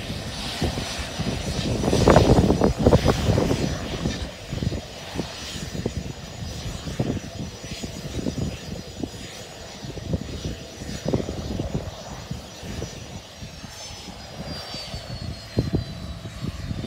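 Cessna Citation business jet's turbofan engines whining at idle on the ramp; in the last few seconds the whine falls steadily in pitch as the engines spool down after parking. An uneven low rumble, typical of wind on the microphone, runs underneath.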